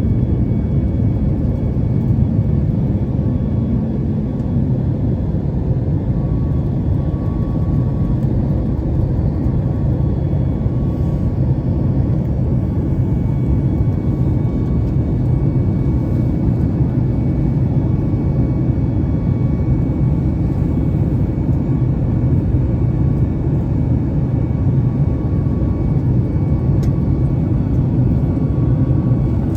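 Steady jet engine and airflow noise inside the cabin of a Boeing 737-8 MAX airliner in flight: an even, deep roar with faint steady whining tones above it.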